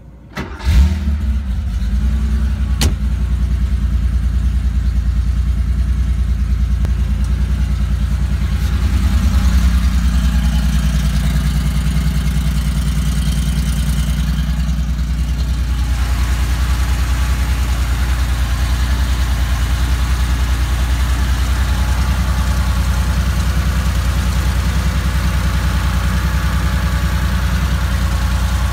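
1982 Porsche 911 SC's air-cooled 3.0-litre flat-six starting: a brief crank, catching under a second in, then idling steadily. In the second half more of the engine's mechanical clatter comes through.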